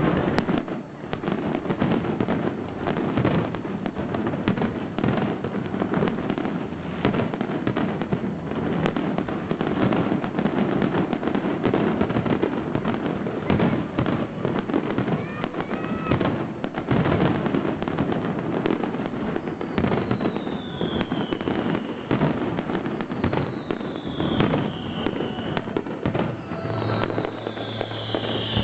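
Fireworks display: a dense, continuous barrage of overlapping bangs and crackling from bursting shells. Several falling whistles join in near the end.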